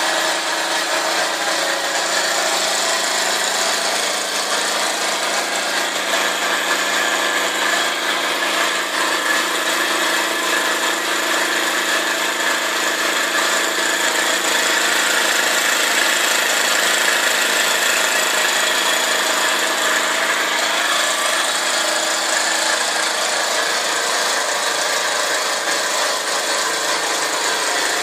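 Doll 347 toy live-steam engine running steadily at speed, belt-driving a Bing toy fountain pump; a continuous, even mechanical whir with the fountain's water spraying.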